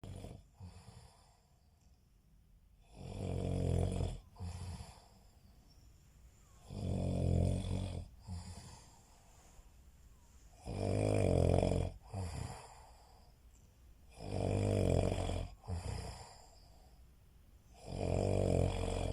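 A man snoring in his sleep: five loud snores at a steady pace, about one every four seconds, each followed by a shorter, softer sound.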